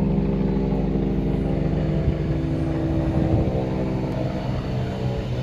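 Electric commuter train drawing into the platform: a steady, loud mechanical hum made of several tones. Some of the tones shift and drop in pitch between about two and three and a half seconds in as the train slows.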